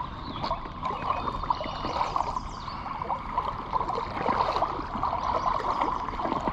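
Creek water running and babbling over rocks, a steady rush with many small gurgles and splashes.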